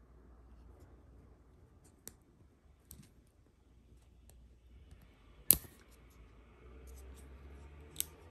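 Clicks from the forward/reverse selector on a 3/8-inch air ratchet's head as it is turned by hand: a few light clicks, one much louder sharp click a little past the middle, and another near the end.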